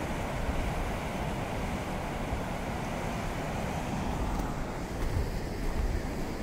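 Waterfall rushing: a steady roar of falling water, with gusts of wind buffeting the microphone about five seconds in.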